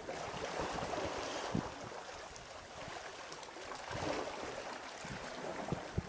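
Black Sea waves washing against a rocky shore, swelling and ebbing twice, with wind noise on the microphone and a couple of short low knocks.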